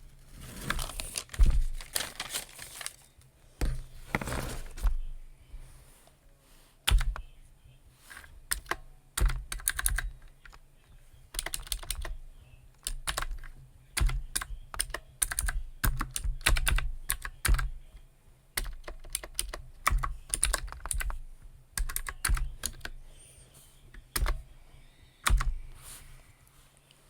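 Typing on a computer keyboard in irregular bursts of key clicks with short pauses between them.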